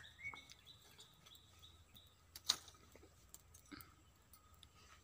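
Quiet outdoor ambience: faint, short high chirping in the first two seconds and a few light clicks, the sharpest about halfway through.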